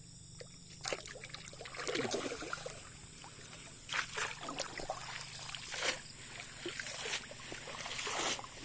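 Water sloshing and splashing in irregular bursts, with scattered sharp knocks and a faint steady low hum underneath.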